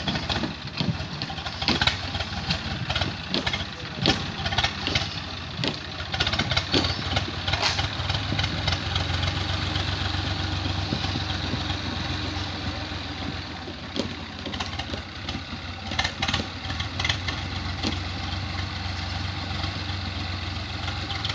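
Swaraj 855 FE tractor's three-cylinder diesel engine running steadily while it drives a rotavator through the field, with scattered sharp knocks over the engine hum.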